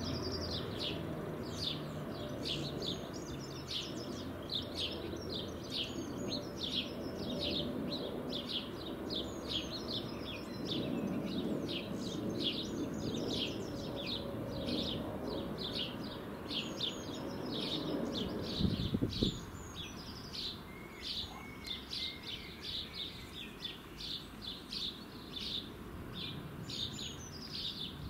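Small songbirds chirping rapidly and continuously over a low outdoor rumble. A short thump comes about two-thirds of the way in, after which the rumble is fainter.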